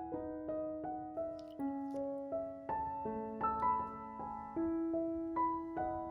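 Background music: a gentle piano melody of single notes struck about two or three times a second, each left to ring and fade.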